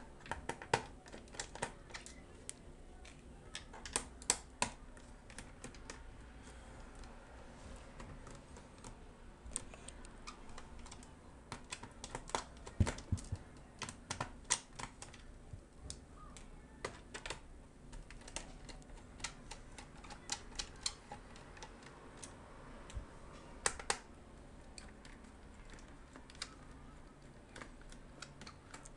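Irregular small clicks and taps of a screwdriver working screws out of a laptop's plastic base, metal tip on screw heads and plastic, with a few louder knocks scattered through.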